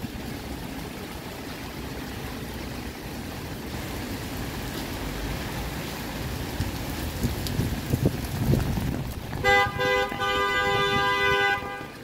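Steady hiss of rain with street rumble, then near the end a car horn sounds: a couple of short toots followed by a held blast of about two seconds.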